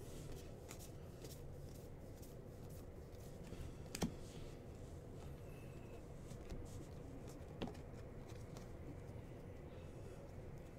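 Faint rustling and soft clicks of trading cards being handled and flipped through, with a sharper click about four seconds in and another a little past seven seconds.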